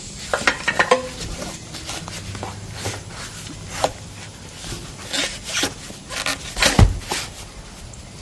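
Irregular clicks and knocks of a battery pack being slid into its mount on the board's metal frame and handled into place, with a quick cluster about a second in and more scattered knocks later.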